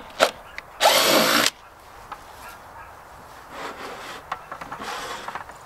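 Cordless drill with an 11/32-inch bit boring through the plastic wall of a 5-gallon bucket: two short bursts, then one loud run of under a second about a second in, followed by fainter scattered noises.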